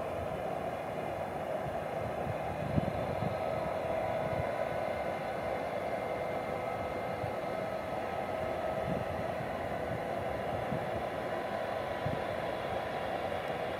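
Distant jet airliner engines running: a steady roar with faint high whining tones above it. One brief knock sounds about three seconds in.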